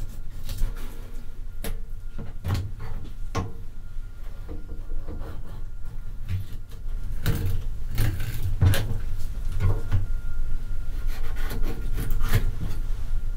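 Kitchen knife filleting a whole isaki (threeline grunt) on a cutting board: short scraping strokes and ticks as the blade slides along the backbone and over the bones, densest from about seven to ten seconds in.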